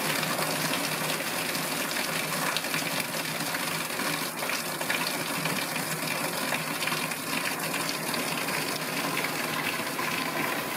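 Heavy tropical downpour: a steady rush of rain, with runoff pouring off the roof and splashing onto a wet tiled terrace.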